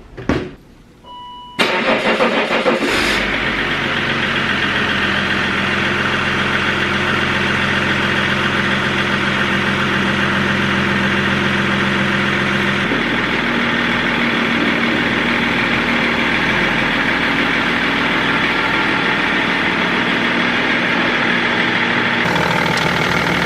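Range Rover L322 TD6's BMW M57 straight-six turbodiesel cranking and starting after a short beep, then idling steadily, with a change in the idle note about halfway through. It runs nice and quiet with a new alternator and belt fitted and the viscous fan removed.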